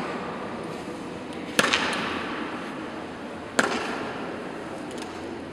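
Honour guard soldiers' boots stamping in unison on a stone floor in slow ceremonial march step, twice, about two seconds apart, each stamp echoing through the hall.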